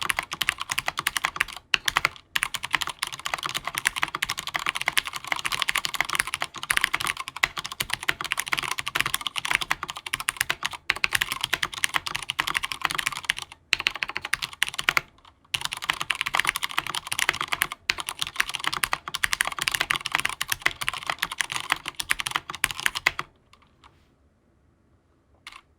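Fast, continuous typing on a stock Durgod Taurus K310 mechanical keyboard with Cherry MX Brown tactile switches, a dense clatter of key clicks with a few brief pauses. The typing stops about 23 seconds in.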